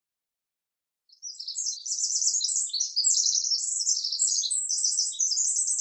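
Rapid, high-pitched bird-like chirping and twittering, starting about a second in and running on without a break.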